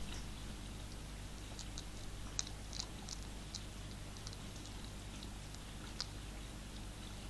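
European hedgehog eating dry food from a tray: faint, irregular crunching clicks as it chews, over the trail camera's steady low hum.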